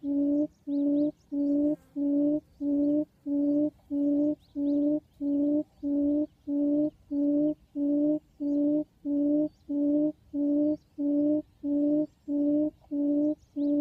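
Barred buttonquail (cút đồng) call used as a lure for the trap: one low hooting note repeated very evenly, about twice a second, without a break.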